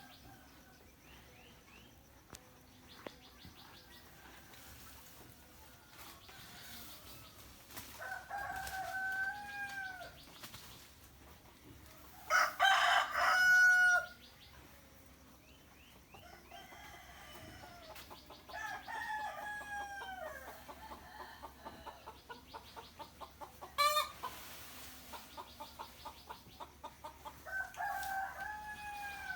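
Roosters crowing one after another, about four long crows with the loudest about twelve seconds in. Between the crows, chickens cluck and small birds chirp in rapid chattering runs.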